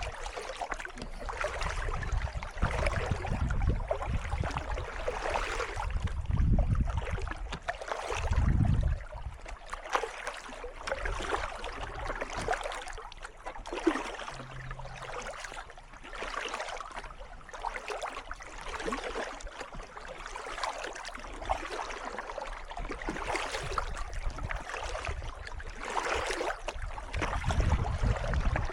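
Kayak paddle strokes splashing and dripping in calm water, repeating through the stretch. A few low rumbles come in at times, loudest a few seconds in and again near the end.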